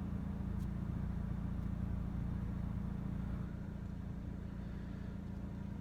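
A steady low mechanical hum, with a faint hiss above it.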